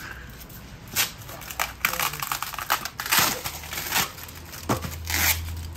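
Bubble wrap and plastic packing being pulled off and crumpled by hand: irregular crinkling and rustling, with louder rips about three and five seconds in.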